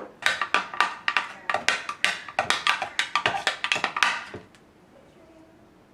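Knife chopping rapidly on a wooden cutting board: a quick run of sharp knocks, about five a second, for around four seconds, then stopping.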